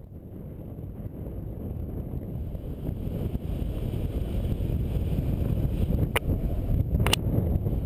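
Wind rushing over the microphone of a paraglider's onboard camera in flight, growing steadily louder, with two sharp clicks about a second apart near the end.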